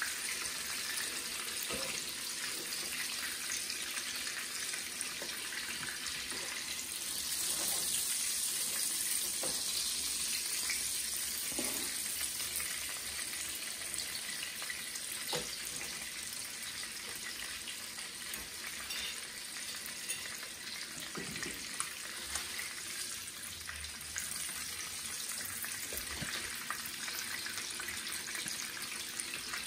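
Blacktail venison steak frying in hot oil in a pan: a steady sizzle that grows louder for a few seconds about a quarter of the way through, with a few faint knocks.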